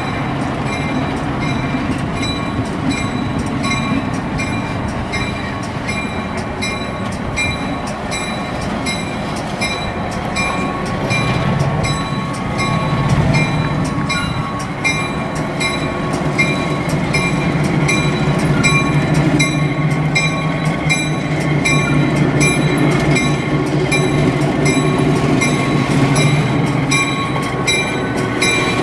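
Richmond Pacific's diesel switcher locomotives, led by the new Knoxville Locomotive Works SE15B, running as they move slowly through the yard. The engine note strengthens about eleven seconds in. The locomotive bell rings steadily at about two strokes a second.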